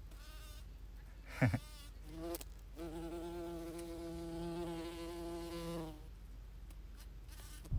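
Large bee buzzing in flight: a short buzz near the start, then a steady drone of about three seconds from around the three-second mark. About one and a half seconds in there is a brief, loud rush of noise that falls in pitch.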